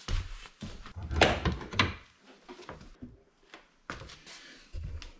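Dull thumps and knocks with light rustling, from footsteps and handling as a person gets up and moves about. They are loudest in the first two seconds and come again near the end.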